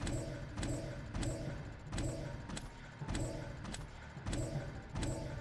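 Zombie-themed online slot game audio while the reels spin: a low, pulsing electronic backing loop with a sharp click about twice a second.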